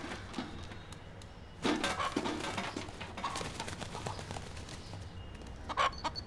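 Broiler rooster flapping its wings as it flies up around a kitchen sink, with light knocks and clatter, loudest from about two seconds in.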